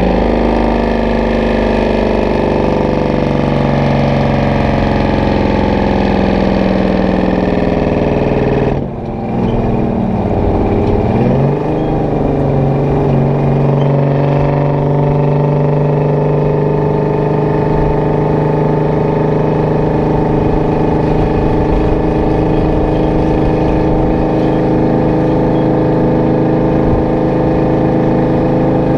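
Detroit Diesel 12V71 two-stroke V12 in a Kenworth W900A running steadily under load while hauling a 40 ft container. About nine seconds in it briefly drops off, as for a gear change, with the pitch dipping and then climbing back over about two seconds before it runs steadily again.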